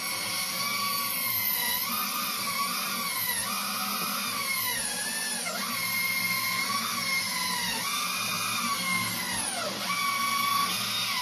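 Vertical bandsaw cutting through a metal tube: a steady cutting hiss with a squealing whine that swoops up and down every second or two as the blade works through the wall.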